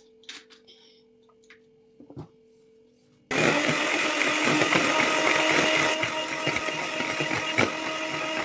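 A few small clicks, then an electric hand mixer switches on suddenly about three seconds in and runs steadily, its beaters whipping cream in a plastic bowl; it gets a little quieter about halfway through the run.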